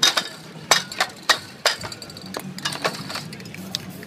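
Metal spray-paint cans clinking against one another as they are handled in a crate, in sharp, irregular clinks about a second or less apart.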